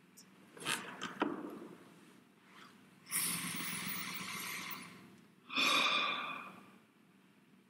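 A man breathes in deeply and audibly for about two seconds, then lets the breath out in a sigh that fades away. A couple of short breathy sounds come about a second in.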